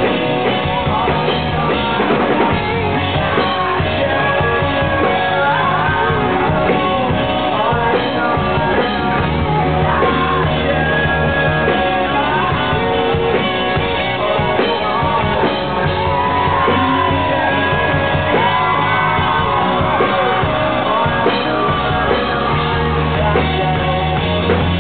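Live rock band playing: electric bass, drums and keyboard under a male lead vocal, loud and continuous, with a big-hall echo.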